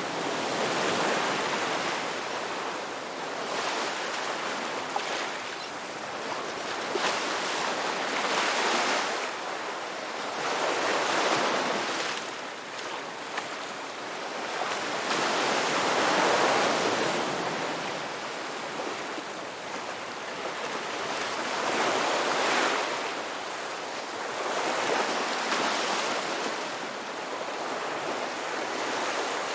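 Ocean waves breaking and washing up a beach, a swell of surf every few seconds rising and falling in a slow, uneven rhythm.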